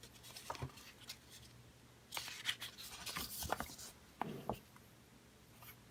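Soft rustling and a few small clicks of a little paper book being handled, its page turned.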